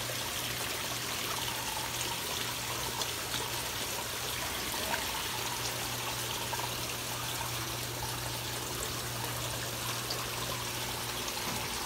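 Steady trickling of running water in a koi pond, with a low steady hum underneath and a few faint small ticks.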